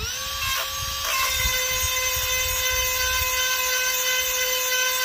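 Cordless rotary chainsaw-chain sharpener spinning up to speed, then running with a steady high whine. From about a second in, a grinding hiss joins it as the stone works a chain tooth.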